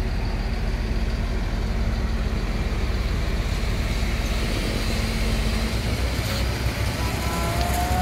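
Heavy diesel engines of the concrete trucks running steadily, a low rumble with a faint hum that drops away about six seconds in.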